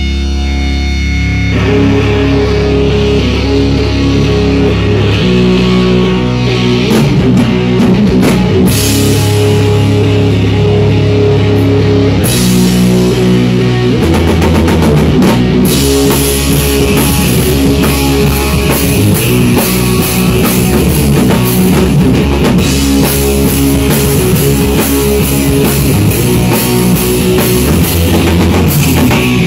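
Stoner rock band playing loud, with electric guitar and drum kit. After a held low chord, the drums and cymbals come in about a second and a half in, and the full band plays on steadily.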